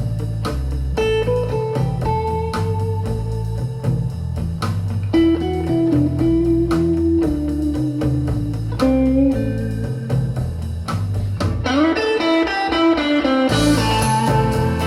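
Blues music with a plucked guitar melody over a steady bass line, played back on a hi-fi stereo system as an audio test. Near the end a quick run of rising guitar notes comes in.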